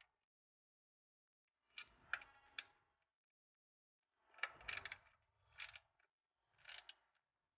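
Ratchet wrench clicking in four short bursts, with pauses between them, as the clutch slave cylinder's mounting bolts are run down tight.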